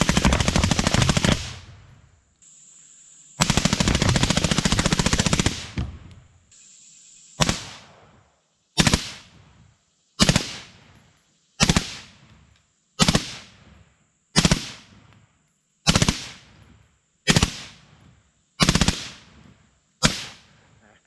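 AR-style carbine fitted with a Hoffman trigger kicker firing rapidly: two long strings of fast shots of a couple of seconds each, then about ten short bursts evenly spaced roughly a second and a half apart.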